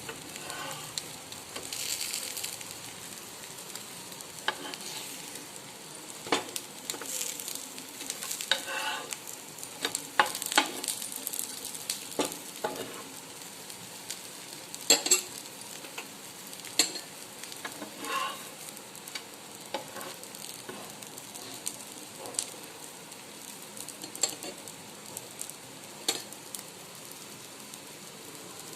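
Bread omelette frying in a pan, sizzling steadily, with occasional sharp clicks and scrapes of a utensil against the pan.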